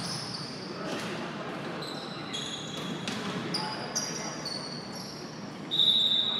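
Athletic shoes squeaking on a hardwood gym floor in short high squeals, with a few sharp ball thuds and a murmur of voices in the hall. Near the end comes one louder, longer high tone.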